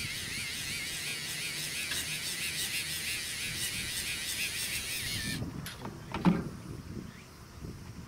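A small electric motor whining with a wavering pitch, which cuts off abruptly about five seconds in; then a few clicks and handling knocks, the loudest about a second later.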